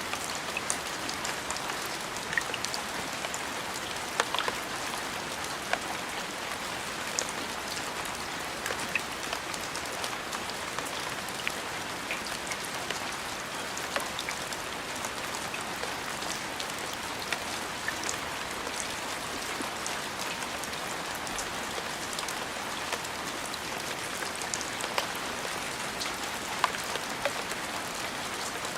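Steady rain falling, with scattered sharper ticks of single drops hitting a surface.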